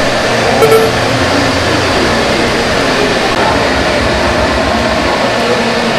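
Steady whooshing din of a shrimp-fishing pond's aerators churning the water, with a short sharper sound less than a second in.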